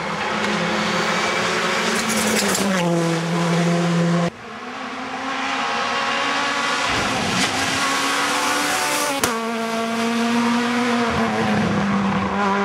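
Rally car engines at high revs, one car after another, each note breaking off abruptly where the next begins. The engine pitch steps down and climbs again through the throttle and gear changes.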